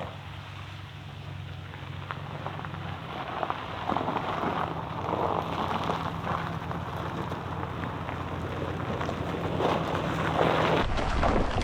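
Vehicle driving: a steady low engine and road hum with a crackling, pattering noise over it that grows louder. Near the end the sound changes abruptly to a deeper rumble of wind on the microphone.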